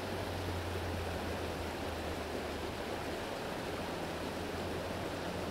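Small stream running over rocks in a shallow riffle: a steady, even rush of water.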